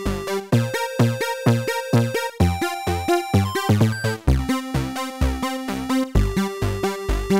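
Upbeat electronic background music: a steady drum-machine beat about twice a second under synth notes, with the beat dropping out briefly about halfway through.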